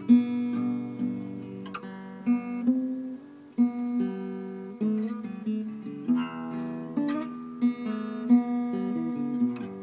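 Acoustic guitar music: picked notes and chords ringing out one after another, with no singing.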